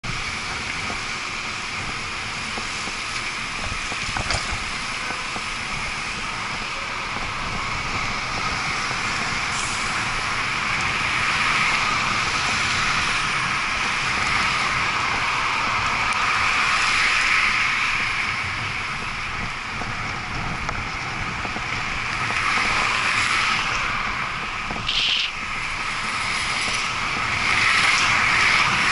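Steady city traffic noise heard from a moving bicycle, with passing cars and buses. A brief high squeal sounds once near the end.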